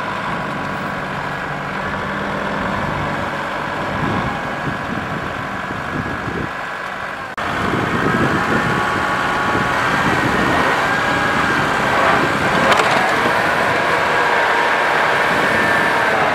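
Two diesel farm tractor engines running hard under load as one tows the other, stuck in deep mud. The sound jumps suddenly louder about seven seconds in.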